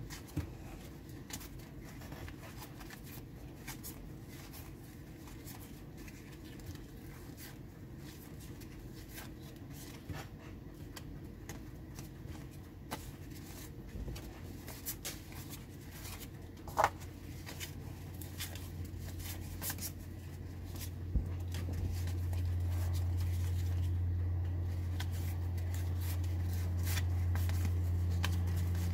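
1992 SkyBox trading cards handled and flipped through one by one, with scattered soft clicks and slides of card edges against each other. A low steady hum comes in about twenty seconds in.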